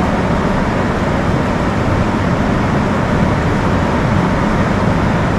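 Steady, loud rushing background noise that stays even throughout, with no distinct events.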